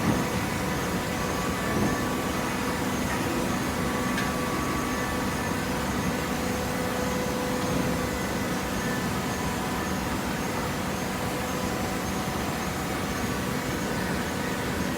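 Hydraulic cardboard baler running steadily, a constant machine hum with a few short knocks in the first few seconds.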